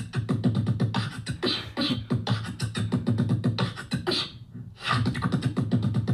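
A man's voice spluttering as he talks, spraying saliva, so his words break into rapid wet pops and spits that sound like beatboxing. There is a short break a little past halfway.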